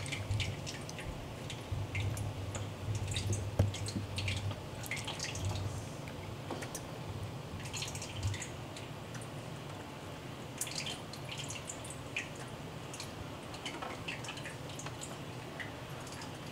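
Scattered small clicks and ticks, with a few sharper clicks among them, over a low hum that comes and goes in the first half.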